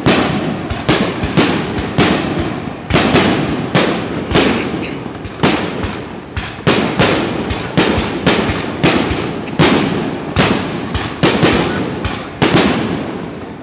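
Fireworks display: shells bursting overhead in quick succession, about two sharp bangs a second, each fading out before the next.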